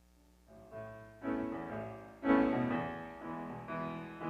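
Piano playing the opening chords of a slow song's introduction, coming in about half a second in, with a series of chords struck one after another.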